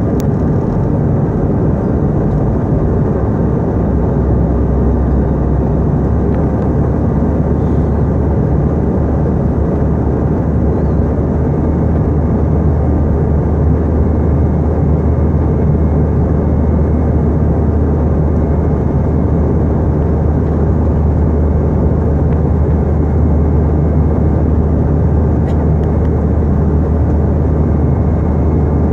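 Steady jet airliner cabin noise: engines and rushing air heard from inside the passenger cabin, mostly low and even. A steady low hum joins about four seconds in.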